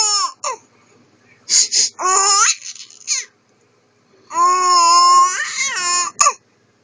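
A man sniffling sharply through his nose, in short spurts, with a small child's high-pitched laughter answering the sniffs.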